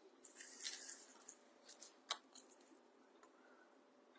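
Faint rustling and crinkling of craft materials being handled, with one sharp click about two seconds in, then near silence.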